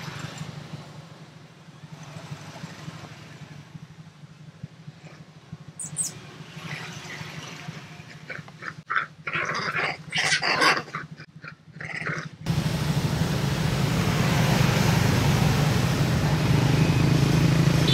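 A cluster of short, harsh animal calls around the middle. About two-thirds of the way in, a steady loud rumble of engine and road noise starts abruptly.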